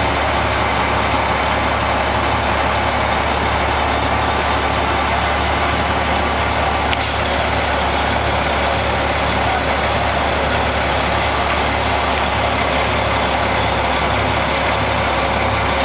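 Diesel semi tractor engine running steadily at low speed under light load as the truck backs slowly up a trailer ramp. Two brief hisses about seven and nine seconds in.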